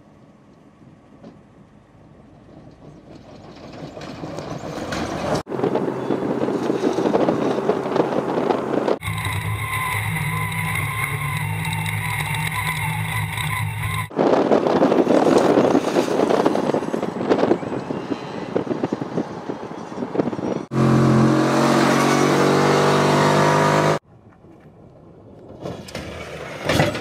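Electric off-road race car with twin 9-inch DC motors driving hard over dirt: rough tyre, gravel and wind noise, with stretches of electric motor whine that climbs in pitch under acceleration. The sound breaks off and changes abruptly several times.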